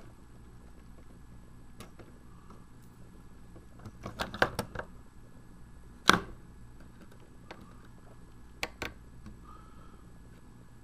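Small screwdriver clicking and tapping against the screw terminal block and the hard plastic case as a wire is fastened: a quick cluster of clicks about four seconds in, one sharp knock about six seconds in, and two lighter clicks a little later.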